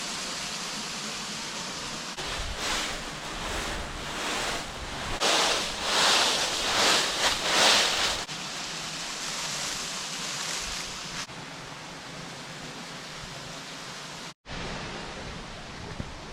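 Steady rush of falling water from a waterfall, swelling louder for a few seconds in the middle, with a brief dropout near the end.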